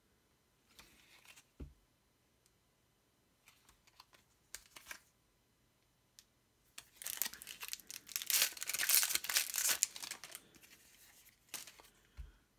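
A few soft clicks of trading cards being handled, then about three seconds of loud crinkling and tearing of a foil booster-pack wrapper midway.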